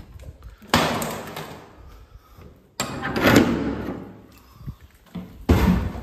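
Old wooden doors being pushed open and banging shut: three loud bangs, about two seconds apart, each dying away over a second or so.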